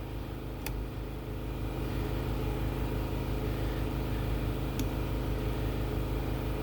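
Plastic repair gun running with a steady low hum while it melts a repair piece into a plastic tank, with two faint clicks, about a second in and near the end.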